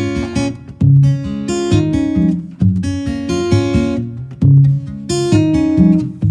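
Background music: an acoustic guitar playing plucked chords, a fresh chord struck about every second.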